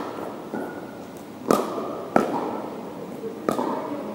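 Pickleball paddles striking a hard plastic ball in a rally: about four sharp hits, each ringing out in a big, echoing hall.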